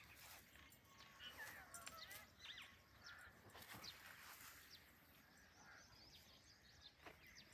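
Faint birds chirping: many short, quick calls, busiest in the first few seconds.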